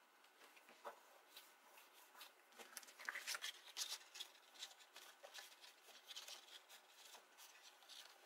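Faint rustling and clicking of cardstock being handled: the layered paper panels of a waterfall card pressed, lifted and shifted by hand, busiest about three to four seconds in.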